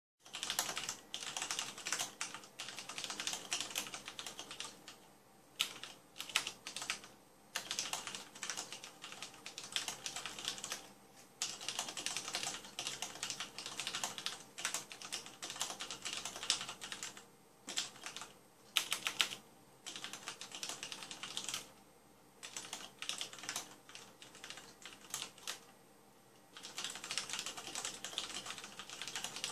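Typing on a mechanical keyboard with red (linear) switches: quick runs of keystrokes, broken every few seconds by short pauses.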